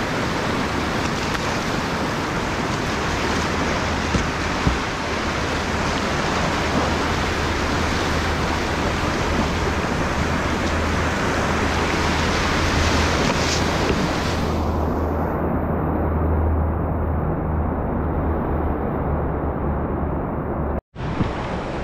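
Rushing whitewater of a river rapid heard from an open canoe running it, a steady hiss over a low rumble, with two short knocks about four seconds in. About two-thirds of the way through the hiss turns abruptly duller, and the sound cuts to silence just before the end.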